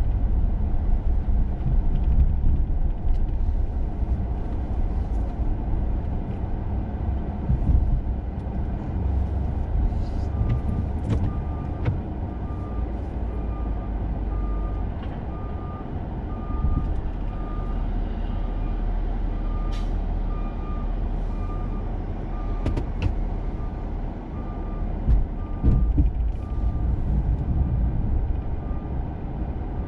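Plow truck engine running steadily, with a few sharp knocks. From about a third of the way in until near the end, a reversing alarm beeps about once or twice a second.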